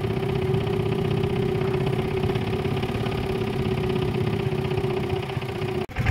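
A small motorboat's engine running steadily at an even speed, heard from on board, with a rapid pulse and a constant hum. The sound drops out briefly near the end.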